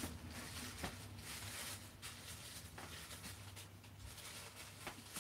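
Faint rustling and a few light clicks from plastic HO scale model train cars being handled, over a low steady hum.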